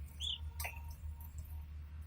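Canary giving one short, high chirp about a quarter second in, followed by a faint click, over a steady low hum.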